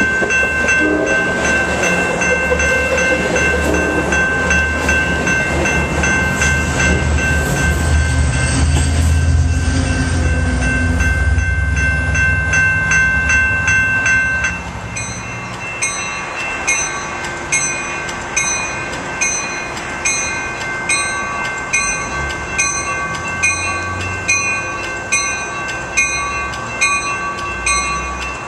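Amtrak Pacific Surfliner bilevel passenger cars rolling past close by, a heavy low rumble with steady high ringing tones over it. About halfway through this stops abruptly, and a bell dings steadily about once a second.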